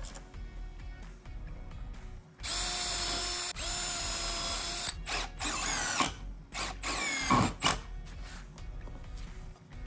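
Cordless drill boring holes into a plywood panel: a steady motor whine for about two and a half seconds, then two shorter runs whose pitch wavers.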